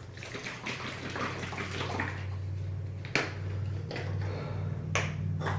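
Liquid cold medicine being poured with a splashy trickle, followed by two sharp clicks of the bottle or dosing cup being handled, over a steady low hum.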